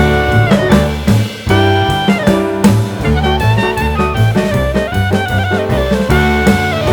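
Background music: a jazzy instrumental with a drum-kit beat and a lead line of held, sliding notes, saxophone-like.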